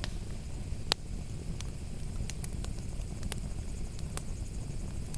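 A wood campfire crackling, with sparse, irregular sharp pops over a low steady outdoor rumble.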